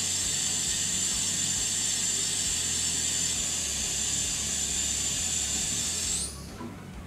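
Water rushing through a partly open valve on the boiler piping as a heating zone is purged, a steady high hiss. About six seconds in the hiss rises in pitch and cuts off as the valve is shut.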